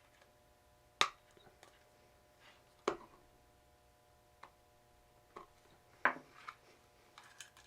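Sharp clicks and knocks, five main ones a second or two apart with lighter ticks between, as switches are pressed and fitted into the panel of a DIY 12-volt test box, over a faint steady hum.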